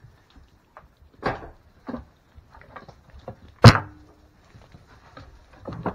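Scattered knocks and clatters from handling a goat during hoof trimming, with one sharp, loud knock a little over halfway through.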